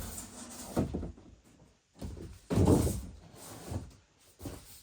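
A large cardboard model-kit box being moved and set down, its cardboard sliding and bumping in a few short bursts, the loudest just past the middle.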